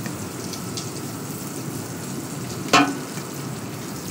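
Chicken pieces frying skin side down in a little oil in a sauté pan, browning with a steady sizzle. One sharp knock comes a little under three seconds in.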